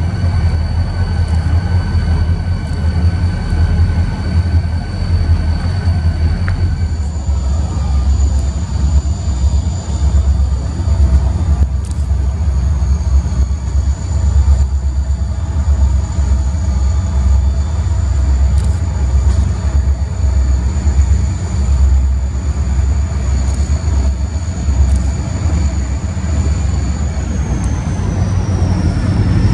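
BNSF diesel freight locomotives running with a steady deep rumble as the train moves slowly past. A thin, steady high whine sounds over it, dipping in pitch and rising again near the end.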